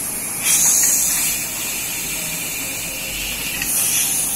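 Steam hissing out of a pressure cooker's vent as its whistle weight is lifted, releasing the pressure left after cooking. The hiss swells twice, about half a second in and again near the end.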